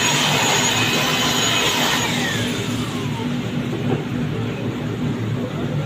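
Steady machine hum in a metal-casting workshop. A loud hiss dies away over the first three seconds, with a falling whine near the end of it.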